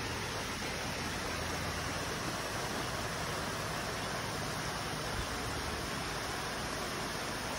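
Steady rushing of a shallow forest stream running over rock ledges in small cascades.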